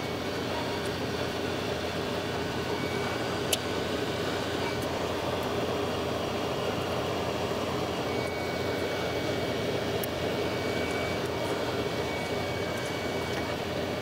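Hot-air rework gun blowing steadily over the circuit board, heating the solder to lift off the video memory chips. A faint high whine runs along with the airflow, and there is a single sharp click about three and a half seconds in.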